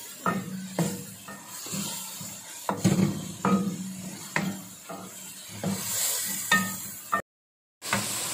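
Wooden spoon stirring frying onion and tomato masala in a metal pan: irregular knocks and scrapes of the spoon against the pan over a sizzle. Near the end the sound drops out for about half a second, then a steadier sizzle follows.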